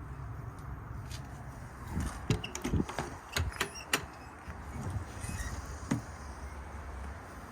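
Sharp clicks and knocks, clustered about two to four seconds in with one more near six seconds: the latch and door of a fiberglass truck service-body compartment being worked open.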